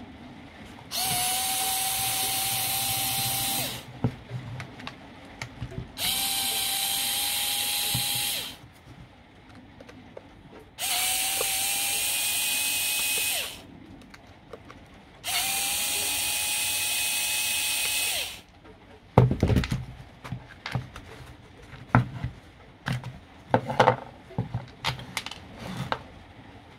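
Cordless power driver backing out the case screws of a lithium battery pack: four separate runs of about three seconds each, one per screw, with a steady motor whine. These are followed by a string of clicks and knocks as the plastic case is pulled apart.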